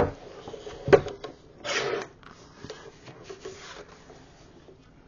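A large sheet of patterned paper is handled and slid into a paper trimmer, rustling and rubbing. There is a sharp knock at the start and another about a second in, a short rasping slide near two seconds in, then quieter rustling.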